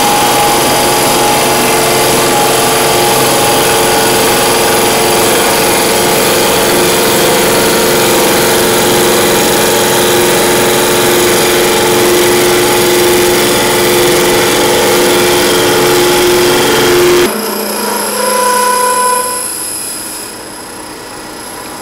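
Wood lathe running while a Gamma Zinken deep-hole boring cutter with HSS blades is fed by handwheel into the end grain of the spinning blank, cutting shavings, with a loud steady noise and a whine. The cutting noise stops abruptly about three-quarters of the way through, leaving a quieter sound that drops further near the end.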